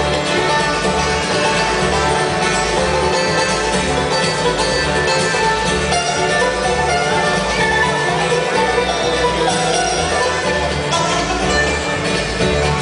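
Live bluegrass band playing an instrumental tune: banjo, mandolin, fiddle, upright bass and acoustic guitar, with the bass keeping a steady pulse under the picked notes.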